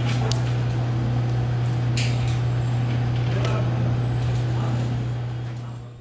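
A loud, steady low machine hum, with a few light clicks and taps of tools against glass sheets. The hum fades out near the end.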